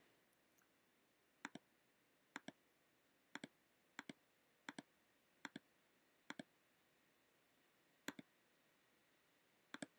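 Faint computer mouse clicks: nine quick double ticks, each the button's press and release, coming at uneven gaps of about one a second over faint room hiss.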